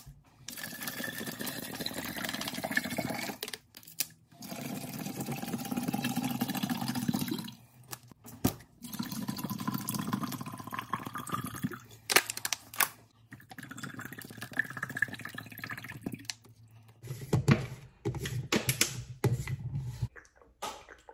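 Bottled water poured into a large 64-ounce plastic water jug in four pours of a few seconds each, with sharp clicks between pours and louder plastic knocks near the end as the jug's lid goes on.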